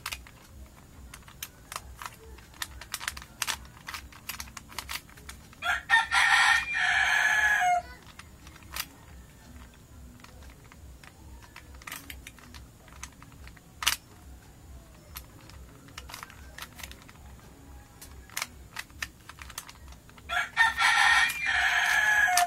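Rubik's cube layers clicking and clattering as they are turned by hand, in quick irregular runs. A rooster crows loudly twice, each crow about two seconds long: one about six seconds in, the other near the end.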